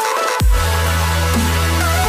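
Electronic dance music with a heavy sustained bass and a falling bass drop about half a second in, under held synth tones.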